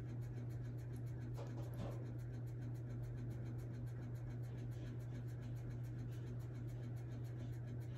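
Makeup brush scratching faintly as it is worked over a pressed powder highlighter, over a steady low hum.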